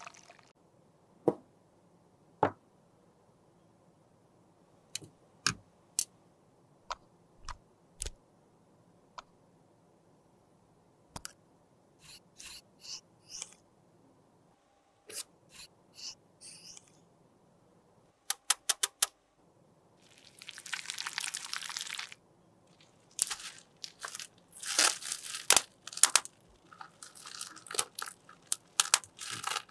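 Scattered sharp clicks and taps of small objects being handled, with a quick run of clicks a little past halfway. Then plastic crinkling and tearing as bubble wrap is handled, densest near the end.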